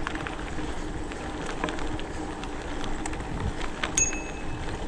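Mountain bike riding a forest trail: steady tyre and ground noise with scattered clicks and rattles from the bike, and one sharp, briefly ringing high ping about four seconds in.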